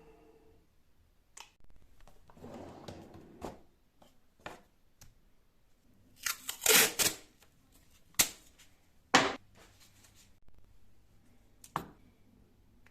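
Scattered knocks, clicks and short scrapes of plywood pieces being handled in a workshop, a few seconds apart. The loudest cluster comes about six to seven seconds in, followed by two sharp knocks.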